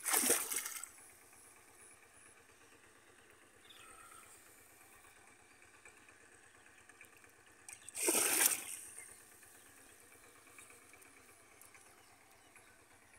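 Two splashes of shallow water, about eight seconds apart and each under a second long, as a bamboo plunge basket (polo) is worked in a flooded field, with faint trickling between them.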